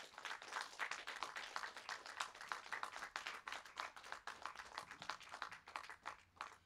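Audience applauding: many hands clapping, which thins out and stops near the end.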